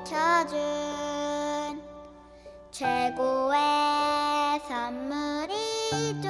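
A gentle Korean children's song, sung over soft accompaniment: one sung phrase ends on a note with vibrato, the music thins for about a second, then a new line comes in on long held notes, with a low bass note joining near the end.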